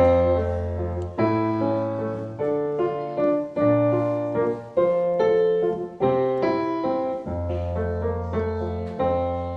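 Instrumental song intro on a piano-style keyboard: chords struck about every 1.2 seconds over a held bass note, each ringing and fading before the next.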